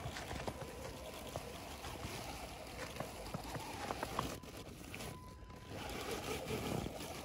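Radio-controlled 4x4 scale crawler driving through deep snow: its tyres crunch and pack the snow in a steady crackle, over a faint thin whine of its small electric motor and gears.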